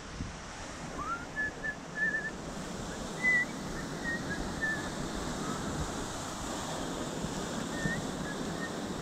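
Waves washing over a rocky shore as a steady rush, with a series of short, high whistled chirps over it. The loudest chirp comes about three seconds in, and a few fainter ones follow near the end.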